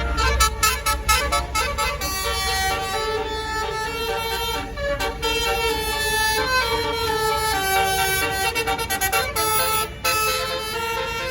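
Bus telolet horn (Basuri) playing a melody of quick stepping notes, with a run of rapid short toots in the first two seconds, over the low rumble of the bus engine.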